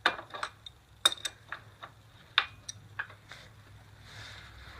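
Steel wrenches clicking and clinking against a motorcycle's rear axle nut as it is turned loose, a string of sharp, irregular metallic clicks about three a second.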